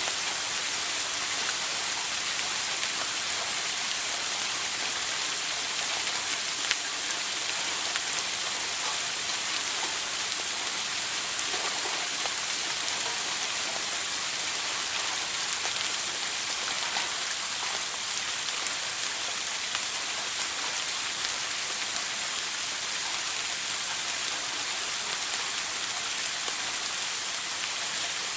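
Shower water running steadily: an even hiss of falling spray, mostly high-pitched, with small droplet ticks scattered through it.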